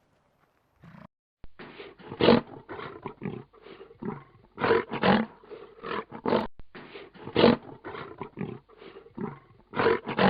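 Animal sound effect: a large wild animal giving a long run of short, rough calls, one after another, starting after about a second and a half of silence.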